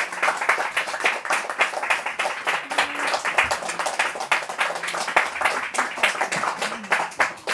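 Audience applauding: many hand claps in a steady patter.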